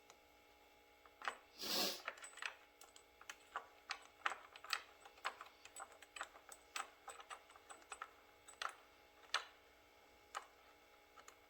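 Irregular small metal clicks and taps, about two or three a second, as a small nut and a deep-well socket are worked by hand onto the threaded back of a garage door opener push button. A short breathy rush of noise comes near two seconds in.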